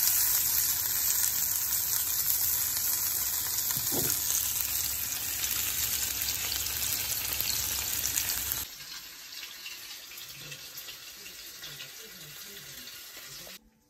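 Asparagus and tandoori salmon sizzling in oil in a frying pan, a loud steady hiss. It cuts off abruptly about eight and a half seconds in, leaving only a faint background.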